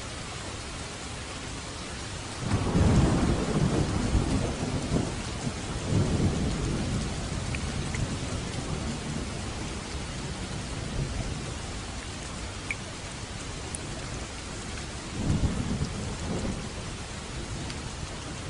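Steady rain falling, with low thunder rumbling about two and a half seconds in, again around six seconds, and once more near the end.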